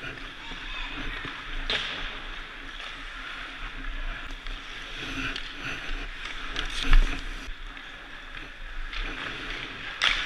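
Ice hockey rink sounds heard from the goalie's position: skate blades scraping the ice and the clatter of sticks and pucks, with a loud crack of a stick striking a puck about seven seconds in and a sharper click near the start.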